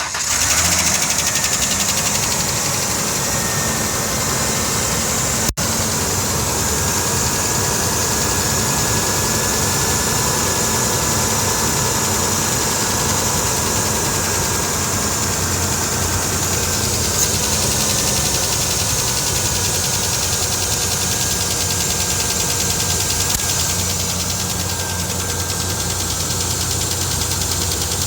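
Car engine catching at the start, then idling steadily, with a clicking noise in it that the owner suspects is engine knock.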